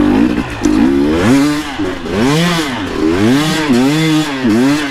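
KTM dirt bike engine revving up and down, its pitch rising and falling about once a second as the throttle is opened and closed.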